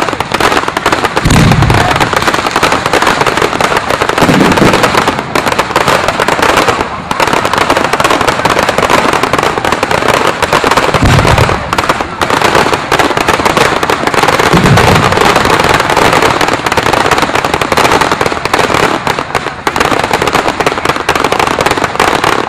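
Firework display going off: a dense, unbroken crackle and fizz of bursting shells, with four deep booms spread through it.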